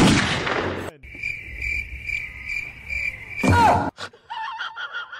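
A loud rushing burst that fades over about a second, then a cricket chirping about twice a second for a couple of seconds, cut off by a brief loud sound with a falling squeak.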